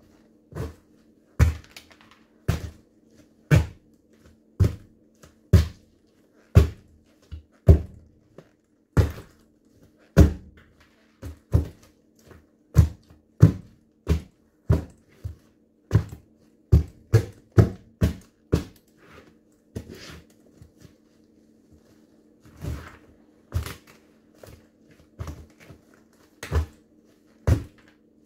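High-heeled platform ankle boots stamping on smashed pumpkin over a wooden floor: a heavy thud about once a second, with a short pause about three quarters of the way through.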